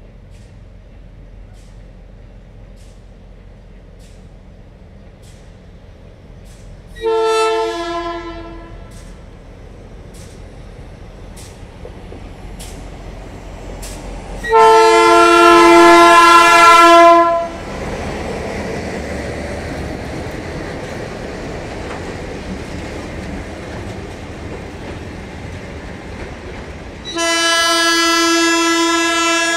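Alco RSD-16 diesel locomotive's air horn sounding a chord three times: a short blast about seven seconds in, a long, very loud blast as the locomotive passes close by, and another starting near the end. Between the blasts the engine and the loaded freight wagons rumble steadily past.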